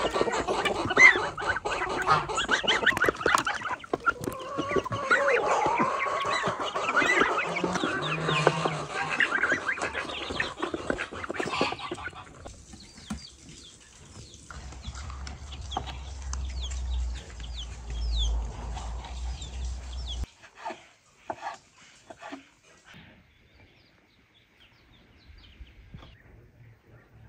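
A farmyard flock of chickens, with geese and ducks among them, clucking and calling busily around feed. About twelve seconds in, the calling stops, leaving a low rumble and then a few faint knocks.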